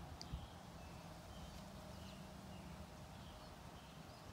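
Faint, scattered bird chirps over a low, steady rumble, with a short tick near the start.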